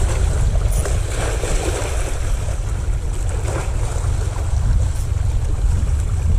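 Wind buffeting the microphone in a steady low rumble, with sea water washing and splashing in two swells.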